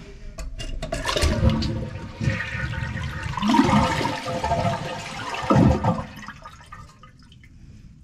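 Toilet flushing: water rushes out of the tank for about six seconds, then dies away.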